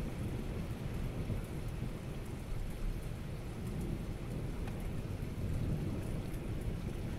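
Steady rain during a thunderstorm, with a low, continuous rumble of thunder underneath and a scatter of light raindrop ticks.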